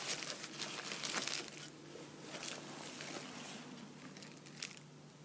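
Plastic wrapping and bubble wrap crinkling as a camera body is pulled out of its protective sleeve: dense crackling for the first second and a half, then fainter rustling with a small click near the end.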